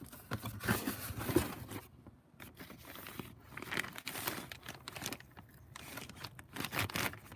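Clear plastic bags crinkling and rustling in irregular bursts as they are handled and lifted out of a cardboard box.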